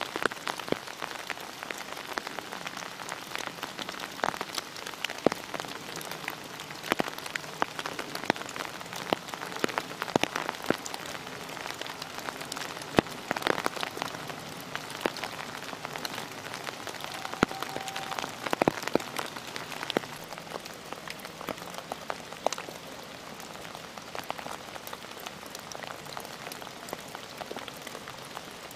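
Steady rain falling in bare woodland, with many single drops clicking close by at irregular moments.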